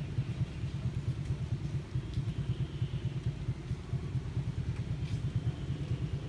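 An engine running steadily, a low, fast, even throb.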